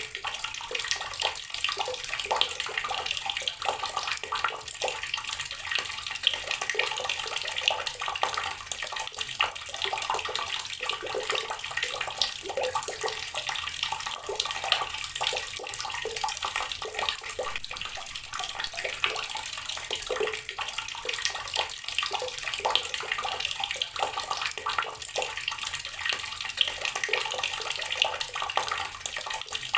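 Water from a tap pouring steadily onto rocks: a continuous splashing with many small, sharp droplet splatters over the rush of the stream.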